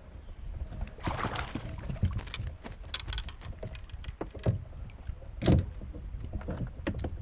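Knocks and clatters of handling in a fishing kayak, gear and hands bumping the hull, with a short rush of noise about a second in and the loudest knock about five and a half seconds in.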